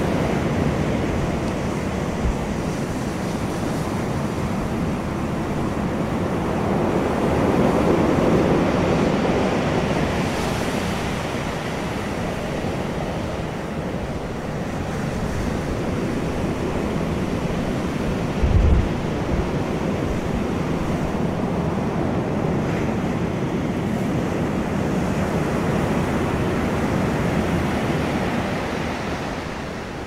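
Ocean waves breaking and washing up a pebble beach, a continuous rush of surf that swells about a quarter of the way in. A brief low thump comes about two-thirds of the way through.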